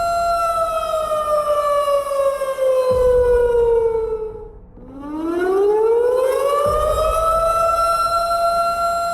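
Warning siren sounding the alarm for an earthquake drill: a steady high tone that slides down in pitch and fades out about halfway through, then rises back up to the same pitch and holds.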